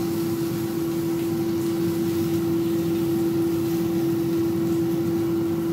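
Khind multi air fryer running: its fan blowing air through the cooking chamber with a steady hum.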